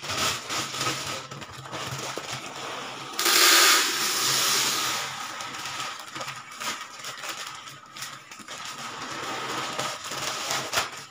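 Dry grain pouring out of a plastic bag into a tall plastic storage container, a steady rushing hiss with the bag crinkling. The pour is heaviest for about two seconds starting around three seconds in, then goes on more thinly with crackles.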